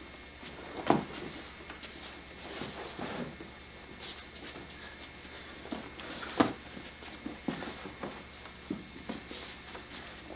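Bare feet and bodies thudding and shuffling on a carpeted dojo floor during aikido techniques. Two sharp loud thumps come about a second in and about six seconds in, with lighter taps and footfalls between them, over a steady low hum.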